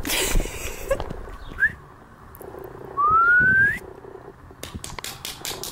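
A dog whining: a short rising whine about one and a half seconds in, then a longer, louder whine that rises in pitch about three seconds in. Faint clicks near the end.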